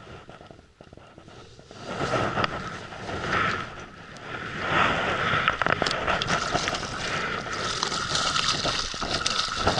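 Hooked Biwa trout splashing at the surface beside the boat near the end, over wind on the microphone and water against the hull. A steady tone runs underneath.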